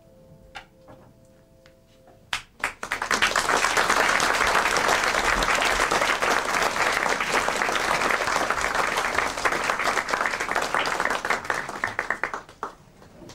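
A grand piano's last chord fades out while a few scattered claps start. Then, about two and a half seconds in, an audience breaks into dense applause that lasts about ten seconds and dies away near the end.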